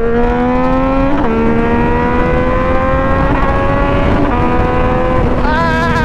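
Yamaha FZ-09's inline three-cylinder engine pulling under acceleration at highway speed. Its pitch climbs, drops at an upshift about a second in, then rises slowly again, and near the end it wavers and falls briefly before steadying. Steady wind rush runs underneath.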